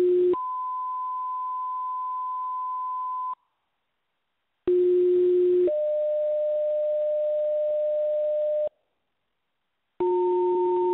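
Two-tone sequential paging tones on a fire dispatch radio channel, the alert sent before a call is announced: a short low tone steps up to a long higher tone, then after a short gap a second low–high pair follows. Near the end, a shorter tone of two pitches sounding at once begins.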